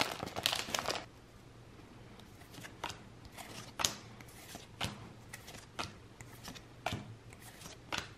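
Pokémon trading cards being handled and flipped through one at a time: short soft slides and clicks of card against card, roughly once or twice a second. In the first second there is a denser crinkle from the foil booster pack.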